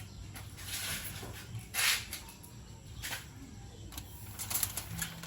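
A few short crinkling rustles of aluminium foil being handled as ribs are sauced on it, the loudest about two seconds in.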